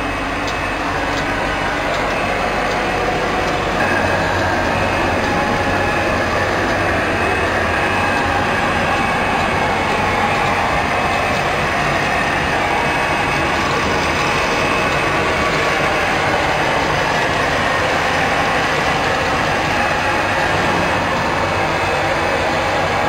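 Automatic ice pop filling and sealing machine running: a steady, continuous mechanical clatter and whir.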